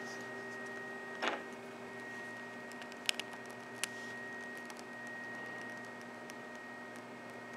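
Light handling noises from a plastic Casio G-Shock watch case and a small precision screwdriver: a brief rustle about a second in, then a few small sharp clicks around three to four seconds in, over a steady electrical hum.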